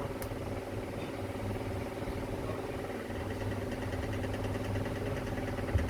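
Steady machine hum: a low drone with several steady tones over it, and a faint fast ticking joining about halfway through.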